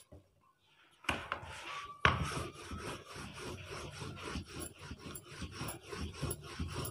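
Rolling pin rolling a thin sheet of dough on a floured rolling board in quick back-and-forth strokes, starting about a second in.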